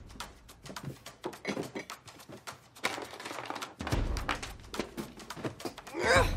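Hurried rummaging: a run of knocks, taps and thumps as things are moved and shuffled about, with a louder swish of a bedspread being flung back near the end.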